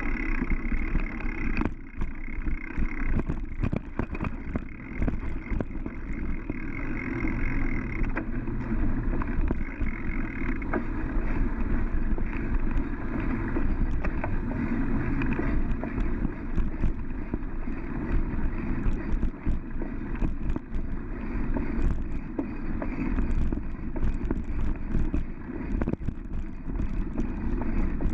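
Mountain bike rolling along a dirt forest trail: a steady rumble of tyres on dirt with frequent small rattles and knocks from the bike over bumps.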